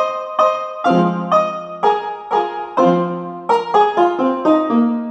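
A cute message ringtone: a light piano-like keyboard melody of short struck notes, about two a second, quickening into a faster run of notes past the midpoint.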